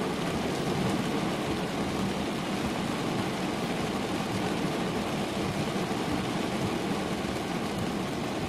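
Heavy rain falling steadily on a car's roof and windscreen, heard from inside the cabin, with the car's engine running underneath.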